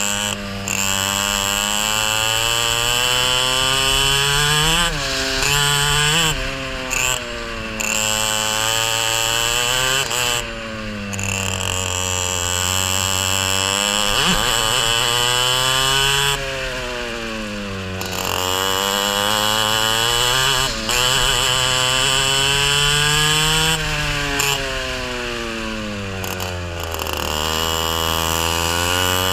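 Racing kart engine heard onboard, revving up steadily along each straight and dropping sharply as the driver lifts off for a corner, five or six times over, with a steady high whine on top.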